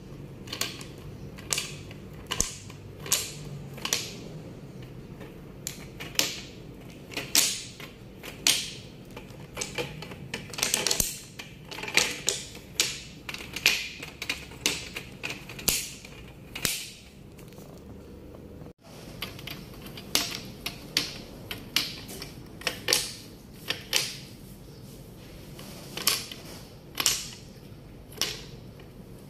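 Painted wooden beads of a bead maze toy clacking against one another and the wire loops as they are slid along: sharp, irregular clicks, a few a second at the busiest, with a short gap about two-thirds of the way through.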